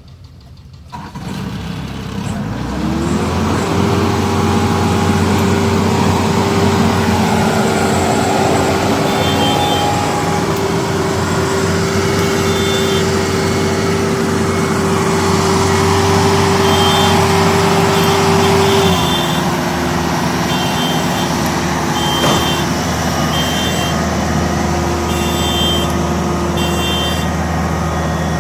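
Large diesel engine speeding up about two to three seconds in and running steadily at high revs, easing down slightly about two-thirds of the way through. Short, high-pitched beeps come and go in bursts over the second half.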